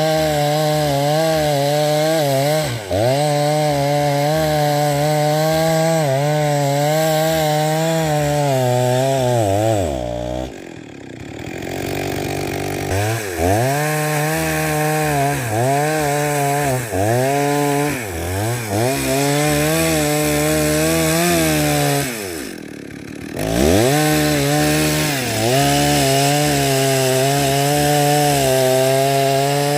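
Stihl MS 360 two-stroke chainsaw running at high revs while cutting through wood, its pitch sagging again and again as the chain bogs under load. Twice, about a third of the way in and again about three quarters in, the engine drops to low revs for a second or two, then revs back up.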